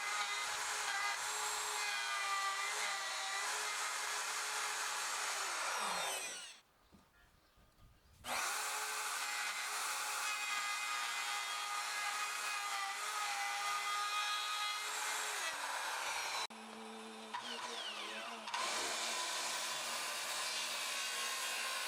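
Electric power tool running as it cuts wood along a marked line for a rough cut. Its motor whine falls away and stops about six seconds in, starts up again about two seconds later, and drops quieter and lower near the end before picking up again.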